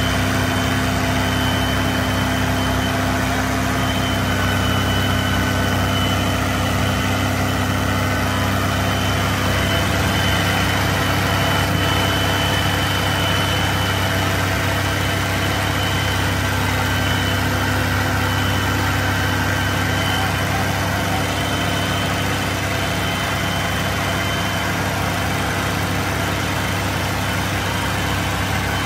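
Fiat 640 tractor's four-cylinder diesel engine running steadily while hauling a fully loaded sugarcane trailer.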